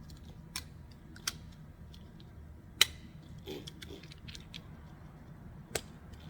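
A few separate light metallic clicks and taps from small parts and hand tools being handled, the sharpest about three seconds in, over a low steady hum.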